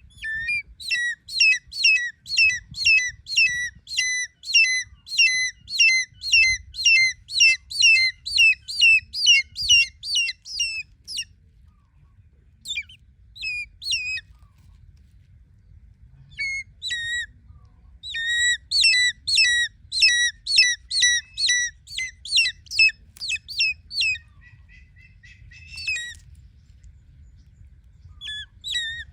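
Changeable hawk-eagle calling: a long series of shrill, high repeated notes, about two a second, breaking off about a third of the way in and starting again after a few scattered calls.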